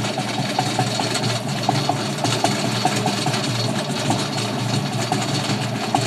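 Motorized Christmas tree shaker running steadily, its motor going with many small irregular ticks and rattles as it shakes loose needles from a tree.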